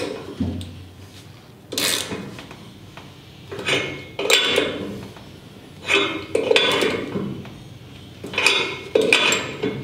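Metal tools and fittings clinking and scraping in about four short bursts, roughly two seconds apart, as a temperature sender is fitted and tightened into a welded pipe fitting on a marine diesel engine.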